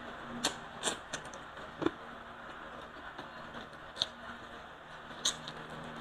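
Close-up mouth sounds of a man eating rice and fried tilapia with his hands: chewing with several short, sharp wet smacks and clicks spread through it.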